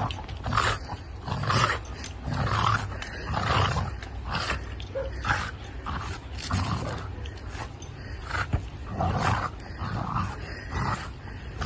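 French bulldog growling in short repeated bursts, about one a second.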